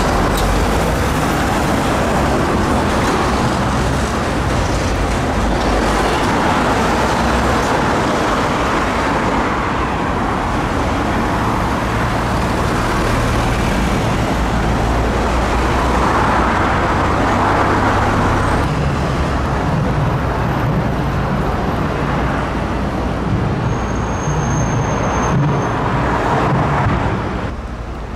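Busy city road traffic: cars, buses and lorries running and passing in a steady, dense rumble that drops off noticeably near the end.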